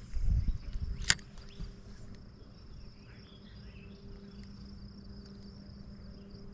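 Insects trill steadily at a high pitch under a faint low hum. A few low knocks and a sharp click come in the first second or so.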